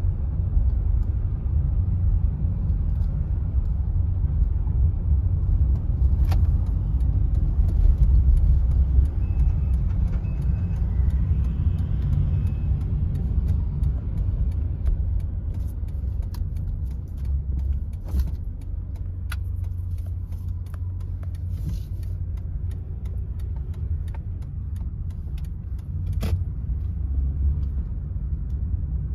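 Car interior road noise while driving: a steady low rumble of engine and tyres, with a few short clicks and knocks from the cabin.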